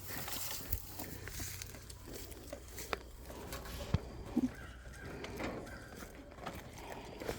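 Goats moving about and feeding on alfalfa hay: scattered light clicks and rustles, with a sharp knock about four seconds in.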